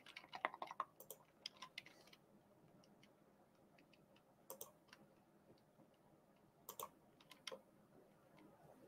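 Faint typing and clicking on a computer keyboard: a quick run of keystrokes in the first two seconds, then a few single clicks a second or two apart.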